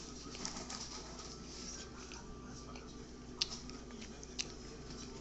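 Fork scraping and clicking softly in a plastic frozen-meal tray while food is picked at, with two sharper clicks about three and a half and four and a half seconds in, over a faint steady hum.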